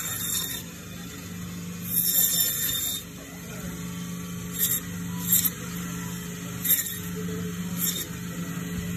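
Butcher's meat bandsaw running with a steady hum, its blade screeching in high bursts as it cuts through lamb rib bones: longer cuts at the start and about two seconds in, then four quick ones.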